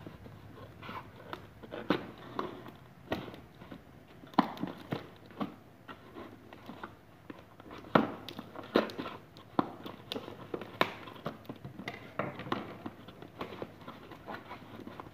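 Cardboard shipping box being opened by hand: a blade scraping and slicing through the packing tape, cardboard flaps rubbing and tape peeling away. Irregular scratches and taps, a few a second.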